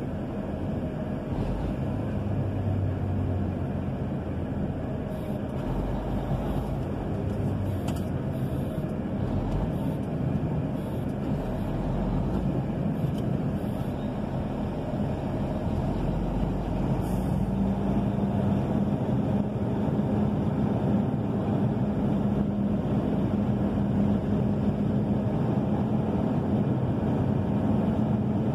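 Heavy truck's diesel engine and road noise heard from inside the cab while driving slowly. A steady engine hum grows stronger about two-thirds of the way through.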